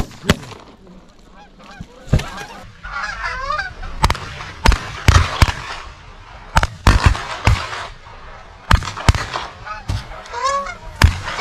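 Shotguns firing more than a dozen shots in quick clusters as a flock of geese honks overhead.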